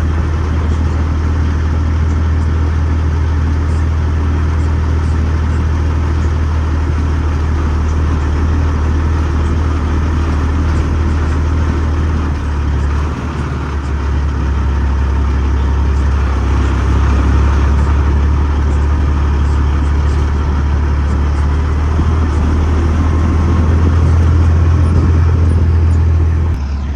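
Semi truck's diesel engine running steadily under way, a deep drone with road noise. It dips briefly about halfway through, then builds louder.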